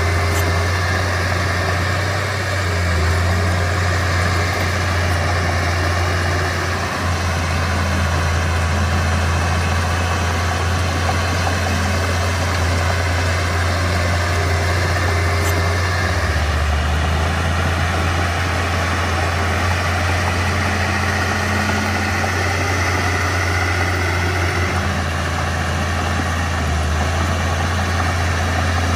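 Mitsubishi BD2F bulldozer's diesel engine running steadily, a low, even engine note with little change in level.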